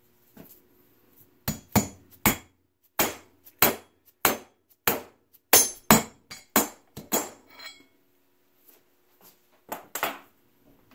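A mallet strikes an aluminum driving mandrel about a dozen times, roughly two blows a second, driving a shaft saver sleeve onto a 6-71 supercharger rotor shaft. Two more knocks come near the end.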